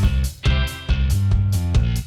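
Background music with a steady beat: pitched, guitar-like notes over bass.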